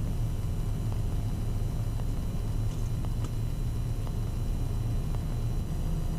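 Steady low drone inside the cockpit of a Cessna Citation CJ4 in flight, from its turbofan engines and the airflow, with a few faint clicks.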